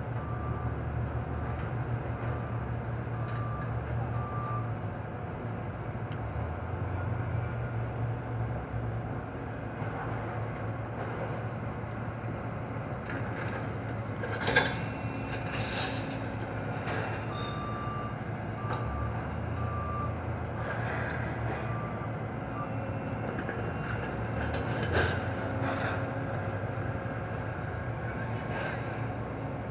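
Scrapyard material handler's diesel engine running steadily, with a backup alarm beeping at the start and again past the middle. From about halfway on, scrap metal clanks and crunches as the grapple works the pile of car wreckage.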